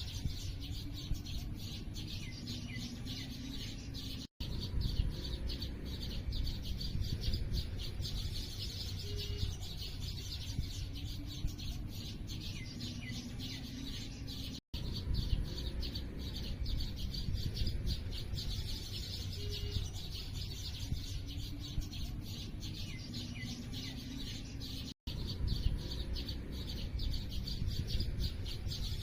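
A dense chorus of small birds chirping rapidly over a steady low rumble. The sound cuts out for an instant three times, about every ten seconds, as the recording loops.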